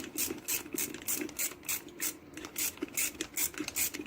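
Ratchet wrench clicking in quick, even strokes, about four or five clicks a second, as a boiler housing bolt is run down until it just seats against the gasket.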